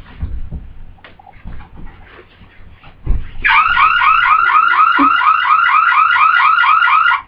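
Electronic police siren in its fast yelp tone, its pitch sweeping about four times a second; it starts about three and a half seconds in, after a low thump, and cuts off abruptly near the end.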